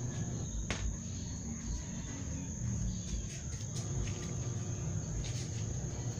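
A steady, high-pitched insect trill over a low rumble on the microphone, with a sharp click just under a second in and a few fainter clicks later.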